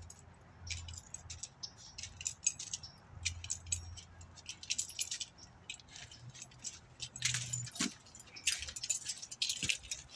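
Irregular light clinking and jingling of small hard objects being handled, many quick clicks that grow busier and louder in the second half.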